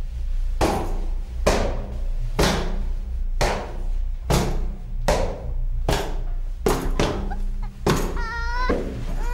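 Slow, heavy footsteps, echoing, about one a second, over a low droning music bed. Near the end a child starts whimpering and sobbing in a wavering voice.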